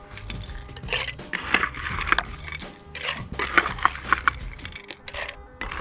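Ice cubes clattering and clinking into a metal cocktail shaker as they are scooped from a bowl, a run of sharp irregular clinks. Low wind rumble on the microphone underneath.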